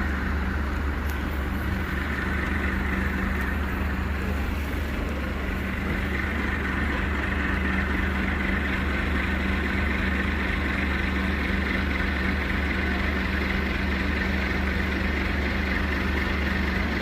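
Heavy vehicle's engine running at a constant pitch, a steady low drone with no revving.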